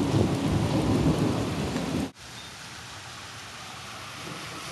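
Heavy rain falling on a flooded street, with a loud low rumble over it. About two seconds in the sound cuts off abruptly and gives way to steady, quieter rain.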